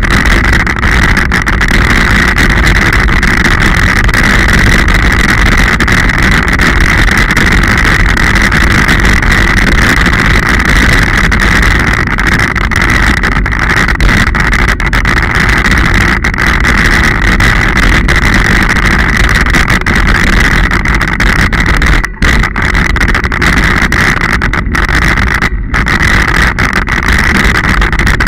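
Steady, loud wind and riding rumble picked up by an action camera on a mountain bike rolling along a rough, muddy dirt track, with a strong constant hiss. The noise briefly dips twice near the end.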